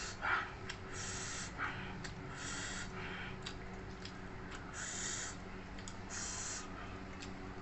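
A person eating: mouth clicks and chewing, with four short hissing breaths spread through it, over a steady low hum.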